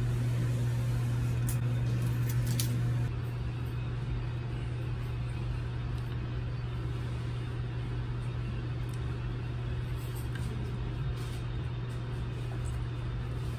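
Steady, engine-like low drone of a bus terminal's interior over a wide background hubbub, dropping slightly in level about three seconds in.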